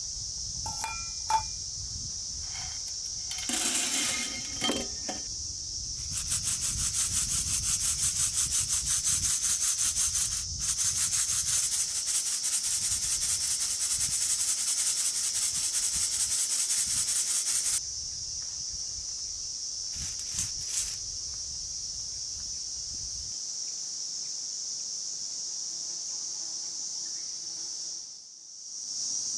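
A fast, rhythmic rasping scrape, as of something being rubbed or sawn, runs for about twelve seconds, over a steady high insect chirring. A few short clatters come just before the rasping starts.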